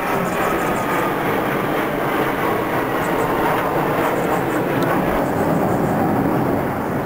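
Steady jet engine noise from a formation of military jets, one large aircraft flanked by two smaller fast jets, flying overhead.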